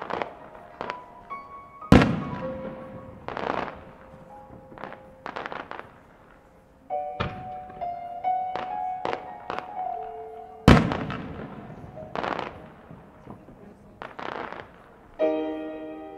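Aerial firework shells bursting over background music: two loud reports, about two seconds in and near eleven seconds, with many smaller pops and cracks between them. A new chord of the music comes in near the end.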